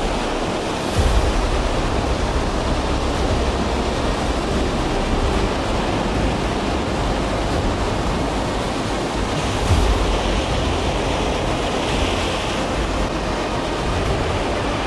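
Heavy surf breaking on a river bar, with wind buffeting the microphone: a steady rush of noise with two heavier low gusts, about a second in and again about ten seconds in.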